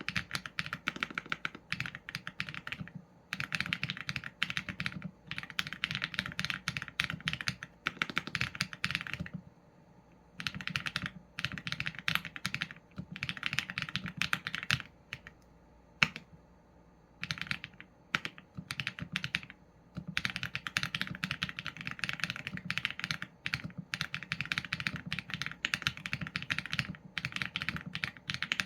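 Typing on a Qsenn A75 mechanical keyboard with Leobog Graywood v4 linear switches and PBT keycaps. Runs of rapid keystrokes are broken by brief pauses, the longest about ten and fifteen seconds in.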